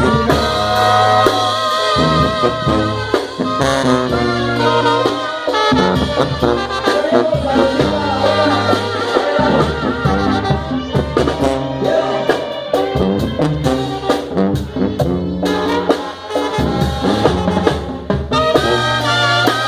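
Mexican banda playing an instrumental introduction: brass carries the melody over a steady low bass line, with no singing.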